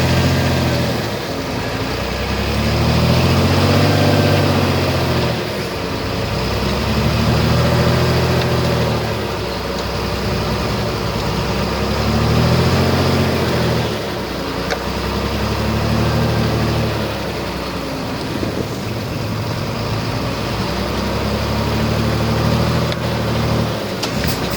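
Heavy diesel engine of earthmoving equipment working under load, its pitch rising and falling in a repeated cycle about every four seconds.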